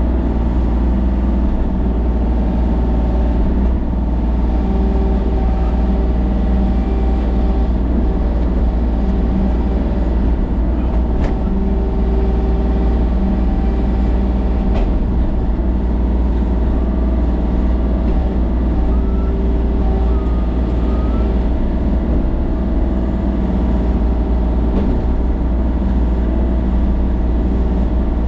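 A vehicle engine running steadily, a deep constant drone with a steady hum and no revving. There are two faint clicks partway through.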